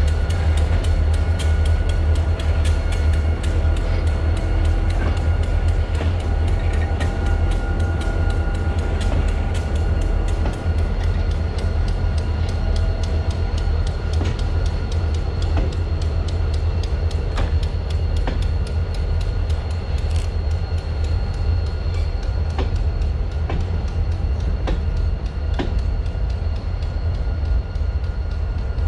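Freight train rolling past: a steady low rumble with frequent clicks of wheels over rail joints and a few thin, steady high-pitched tones from wheels on the rails.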